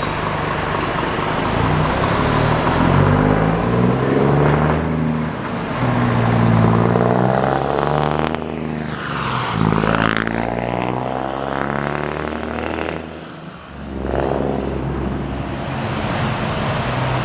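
Scania NextGen S500 truck's 13-litre straight-six diesel through an open exhaust pipe, pulling away and accelerating in steps through the gears. It passes close by, the pitch sweeping up and then falling, dips briefly about 13 seconds in, then pulls on as it drives away.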